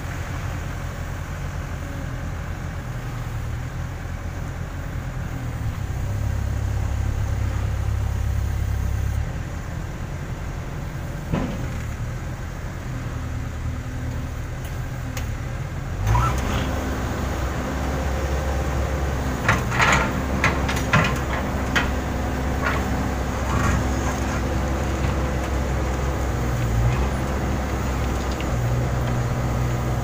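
Case N Series backhoe loader's diesel engine running as the backhoe digs, revving up for a few seconds early on and again from about halfway as the boom works. A handful of sharp knocks come from the digging soon after the second rise.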